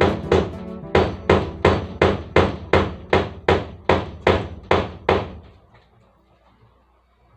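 Hammer striking in a steady run of about fourteen blows, roughly three a second, then stopping about five seconds in.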